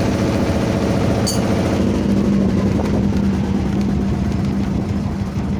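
Fishing boat's engine running steadily, an even drone with a strong low hum.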